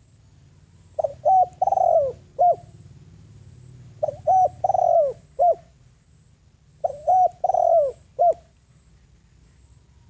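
Spotted dove singing its cooing call three times, each phrase about a second and a half long: two short coos, a longer falling croo and a short final coo.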